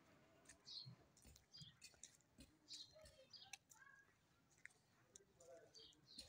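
Faint outdoor quiet with scattered short bird chirps and a few soft clicks.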